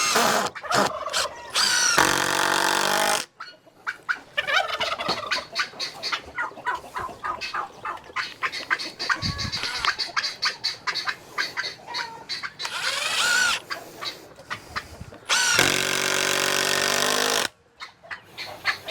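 Poultry flock calling: two long, loud rooster crows, one about two seconds in and one near the end, with shorter clucks and calls between them.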